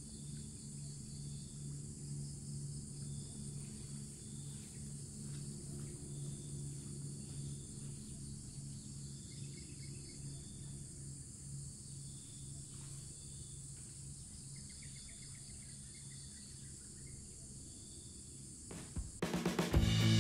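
Steady chirring of crickets and other insects over a steady low hum, with short high chirps recurring every second or two. Music with guitar comes in suddenly near the end.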